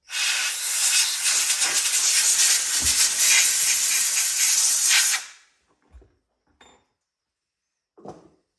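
A loud, steady hiss from a pressurised nozzle, likely clearing drilling chips from the freshly drilled hole. It starts abruptly and cuts off after about five seconds, followed by a few faint light knocks.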